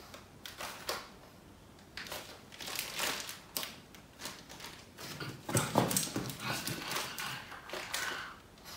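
Pug sniffing and snuffling: a string of short sniffs, louder for a moment about halfway through.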